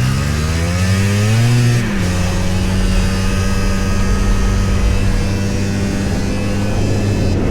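Two-stroke engine of a 1997 Yamaha V-Max 500 snowmobile under way: the engine note climbs for about two seconds, drops suddenly, then holds steady. The owner says the sled isn't running to its true potential and suspects the pilot or main jet, carburetion or the clutch.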